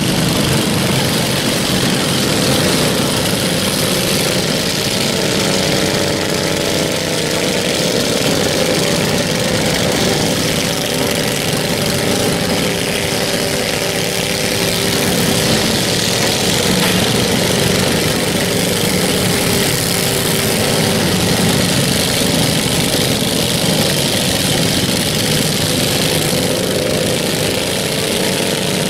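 Several riding lawn mower engines running together while the mowers drive: a steady, loud mix of small engines at slightly different pitches.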